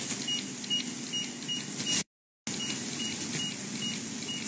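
LED phototherapy mask unit beeping: short high beeps, about two to three a second, over steady background noise. The sound cuts out completely for a moment about two seconds in.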